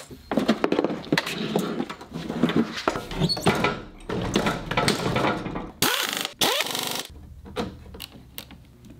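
Hand tools working on metal parts: irregular clinks, scrapes and knocks of wrenches and fasteners, quieter in the last two seconds.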